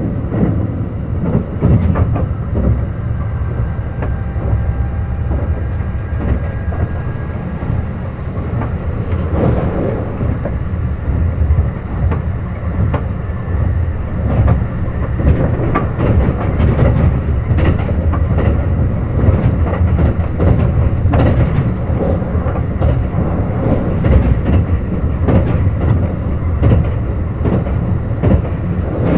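Kintetsu 21000-series Urban Liner Plus limited-express train running at speed: a steady rumble of wheels on rail, with the irregular clicks of rail joints.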